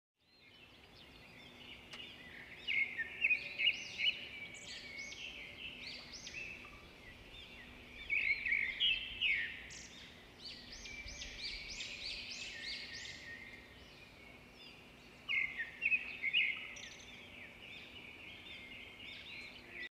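Birds chirping in quick, high-pitched runs of notes, in three louder bouts a few seconds apart.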